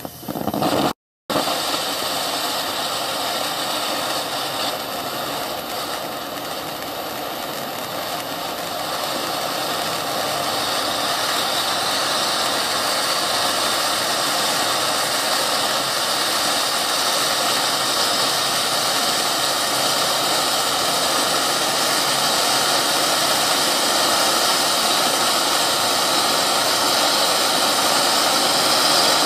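Wolff Assorted Volcano cone fountain firework burning: a loud, steady hiss of spraying sparks that starts suddenly and slowly grows louder. There is a brief total dropout about a second in.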